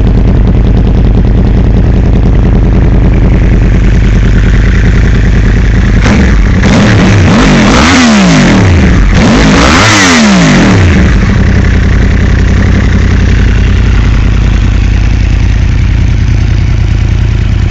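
Engine idling loudly and unevenly, blipped twice in quick succession about six seconds in: each rev rises and falls back, and then the engine settles back to idle.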